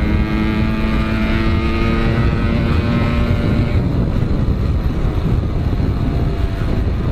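Suzuki Shogun motorcycle engine running at steady revs under way, heard through heavy wind rush on the microphone. About three and a half seconds in, the engine note fades out under the wind noise, as when the throttle is closed to coast.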